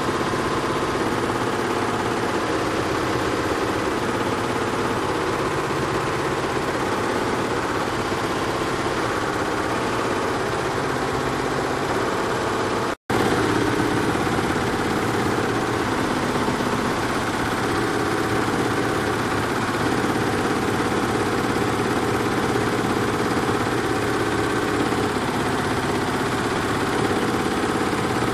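Tajima computerised embroidery machine running and stitching: a steady, rapid mechanical clatter with no change in pace, broken by a split-second dropout in the sound about halfway through.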